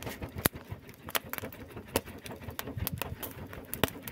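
Corn cobs roasting on hot charcoal, crackling with irregular sharp pops and snaps, several a second.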